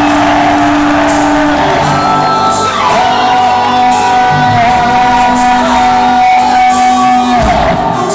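Hard rock band playing live and loud: distorted electric guitars, bass, drums and cymbals, with long held notes that slide in pitch about a third of the way in and drop away near the end.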